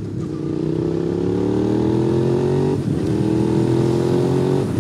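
2005 Suzuki SV650's 645 cc V-twin engine accelerating hard through the gears. The revs climb for nearly three seconds, drop at an upshift, then climb again until another shift near the end.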